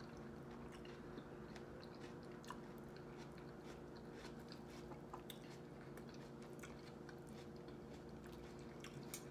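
A person chewing a mouthful of food: faint, scattered wet clicks and smacks, over a steady low hum.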